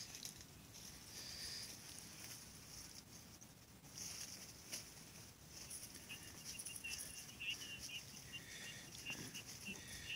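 Faint birdsong: high chirps come and go throughout, and from about six seconds in there is a rapid trill of short repeated notes.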